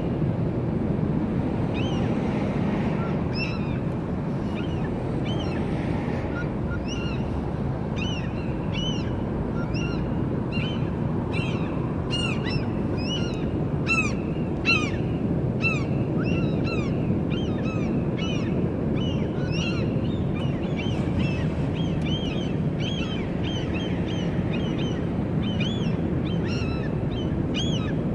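Gulls mobbing an eagle: many short, high calls in quick succession, busiest around the middle, over a steady low rumble.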